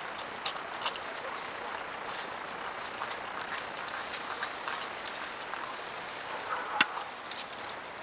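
Steady hiss from a trail camera's microphone, its audio degraded by low batteries, with scattered faint ticks and one sharp click about seven seconds in.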